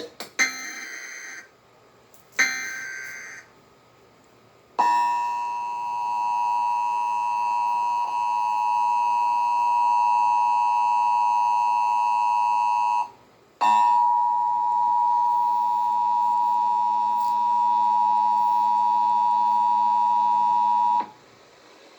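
Emergency Alert System tones on a TV broadcast. Two short, raspy EAS header data bursts come first. Then the steady two-tone EAS attention signal (853 and 960 Hz) sounds for about eight seconds, breaks off briefly, and resumes for about seven more seconds before cutting off.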